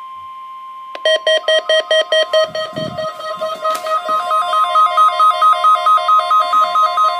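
NOAA Weather Radio's steady 1050 Hz warning alarm tone, the weekly test signal that sets off weather alert receivers. From about a second in, a louder electronic alarm pulses over it about three to four times a second, turning into a two-pitch warble partway through: a weather radio receiver's alarm set off by the tone.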